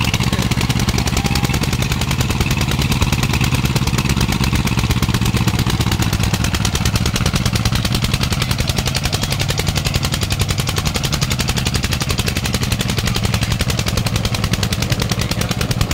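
Tractor diesel engines working hard under heavy load in a tug-of-war, a loud, steady, rapid hammering of firing strokes.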